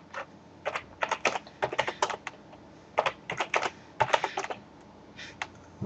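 Computer keyboard being typed in several short bursts of keystrokes with pauses between them.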